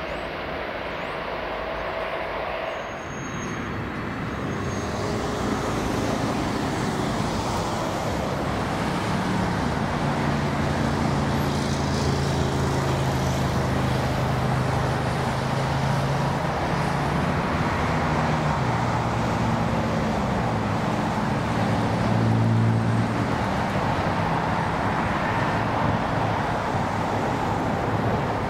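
Jet airliner noise on the runway. For the first few seconds it is an Airbus A330 rolling out. After that a Boeing 747-400's engines run with a low, steady drone of several tones that slowly drift up and down in pitch.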